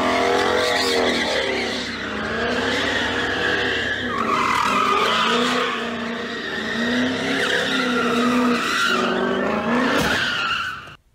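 A car drifting in circles, its tyres squealing in long wavering screeches over the revving engine. The sound cuts off suddenly near the end.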